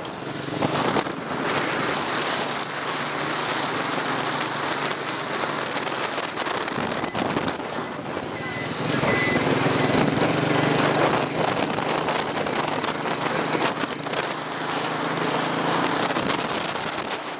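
Motorbike running along a street, heard from the pillion seat, with wind rushing over the microphone; the noise swells for a couple of seconds about halfway through.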